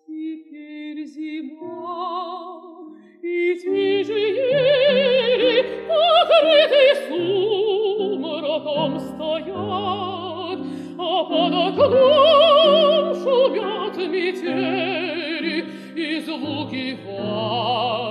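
A female operatic mezzo-soprano sings a Russian romance with a wide vibrato over grand piano accompaniment. It begins softly and swells to full voice about three and a half seconds in.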